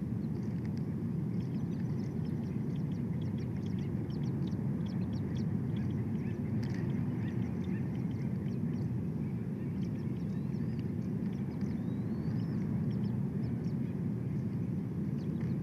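Steady low outdoor rumble on a bald eagle nest camera's microphone, with faint high bird chirps scattered through it and two short rising whistled calls about two-thirds of the way through.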